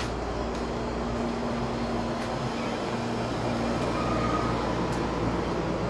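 A steady low mechanical rumble with a constant hum, with a few faint clicks.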